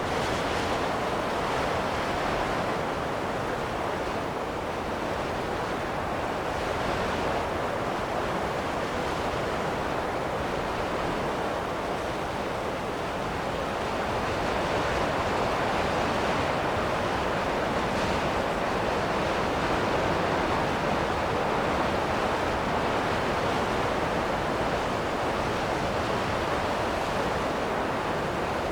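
Wind blowing in a steady rush that swells a little about halfway through.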